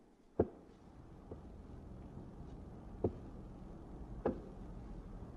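A few sharp knocks, one about half a second in and two more around three and four seconds in, over a faint steady low hum.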